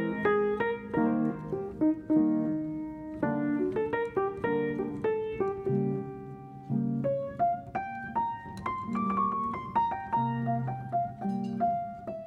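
Background music: solo piano playing a gentle melody of single struck notes and chords, several a second.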